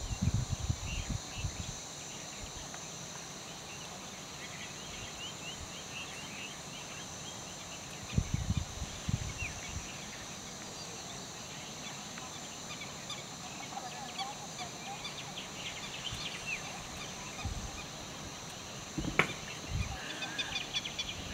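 Forest ambience: a steady high-pitched insect buzz with birds chirping and calling throughout, and a few low thuds about eight seconds in and again near the end.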